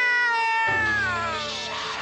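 Eerie horror-trailer soundtrack: a high wailing tone with many overtones is held, then slides down in pitch. A low drone comes in under it about two-thirds of a second in.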